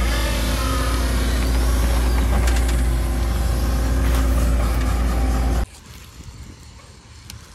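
Tracked excavator's diesel engine running with hydraulic whine as it works a bucket of soil, with a brief squeal about two seconds in. The engine sound cuts off sharply after about five and a half seconds, and much quieter rustling follows.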